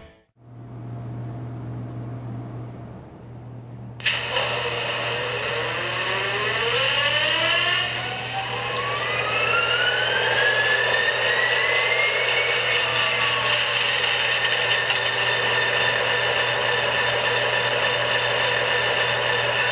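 HO scale Norfolk Southern diesel locomotive model running: a low steady hum, then about four seconds in a louder engine-like sound starts suddenly. Its pitch rises over several seconds, like an engine speeding up, and then holds steady.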